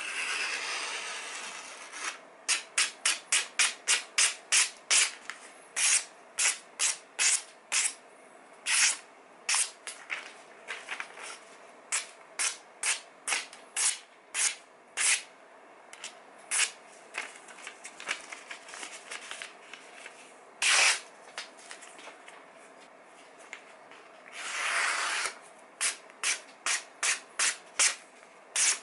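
Freshly sharpened kitchen knife slicing through glossy magazine paper: a long run of quick, short slicing strokes, about two a second, with a couple of longer rustles of the paper being handled, at the start and about three-quarters through. The clean slicing is the paper test of the new edge's sharpness.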